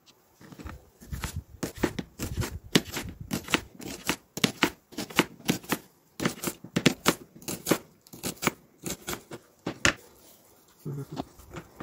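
Kitchen knife slicing a red onion on a cutting board: a quick run of sharp taps, about three a second, as the blade goes through and hits the board. The taps stop near the end.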